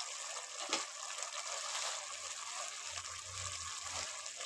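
Potato curry boiling hard in an uncovered pot, a steady bubbling hiss, with one sharp click about a second in.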